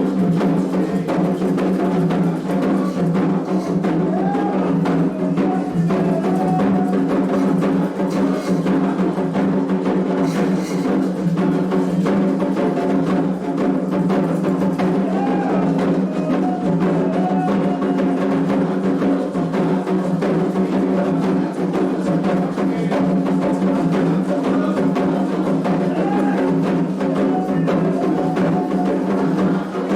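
Candomblé toque for Ossain: atabaque hand drums playing a fast, continuous rhythm, with voices singing over them.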